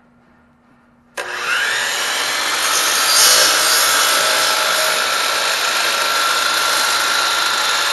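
Electric sliding miter saw switched on about a second in, its motor whining up to speed and then running steadily as the blade is brought down through a wooden board.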